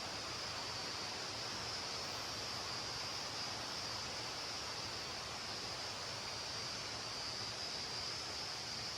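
Waterfall rushing steadily, a constant roar of falling water with a high hiss above it.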